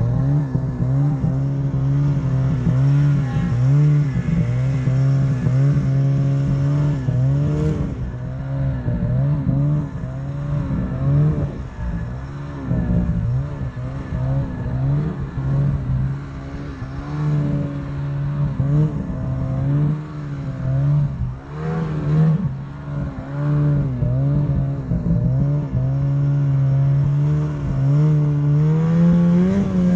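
Snowmobile engine running under varying throttle while riding through deep powder, its pitch rising and falling over and over and climbing steadily near the end.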